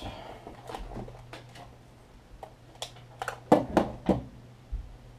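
Scattered light clicks and knocks of a digital multimeter and its test leads being picked up and handled on a workbench, with a cluster of louder knocks about three and a half seconds in, over a low steady hum.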